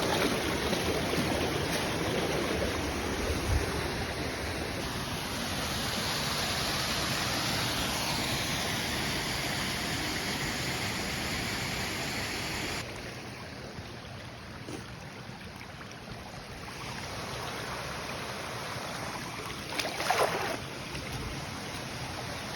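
Creek water running, a steady rushing noise that becomes abruptly quieter about thirteen seconds in. A brief louder noise comes about twenty seconds in.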